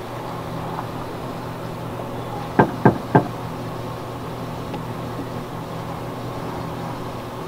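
Three quick knocks on a front door, about a third of a second apart, a little under three seconds in, over a steady low hum.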